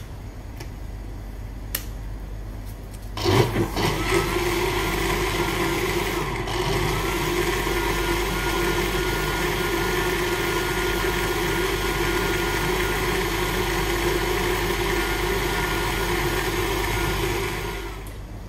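A few light clicks, then a countertop blender is switched on about three seconds in. It runs at a steady speed for about fourteen seconds, puréeing tomatoes, raw vegetables and tomato juice into gazpacho, and winds down just before the end.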